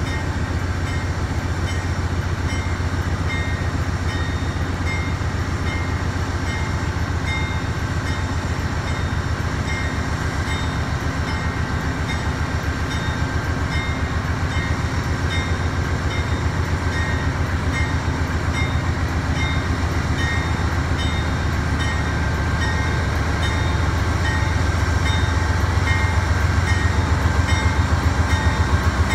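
Norfolk Southern diesel freight locomotives working to pull a double-stack train away from a standstill. The engines give a deep, steady pulsing sound that grows louder about three-quarters of the way through. A faint high ding repeats steadily over it.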